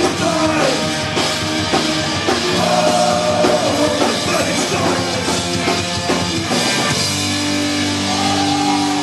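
Punk rock band playing live: electric guitars, bass and drum kit, with a singer's vocals over them. About seven seconds in, the band holds a single sustained chord.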